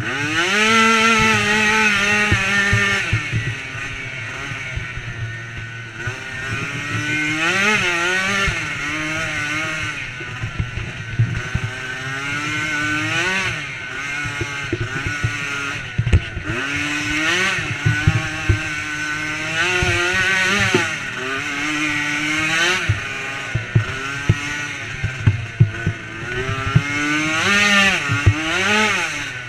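DRR 90 youth ATV's small engine revving up and falling back over and over as it is ridden hard along a bumpy trail, with frequent knocks and rattles from the machine over the ruts.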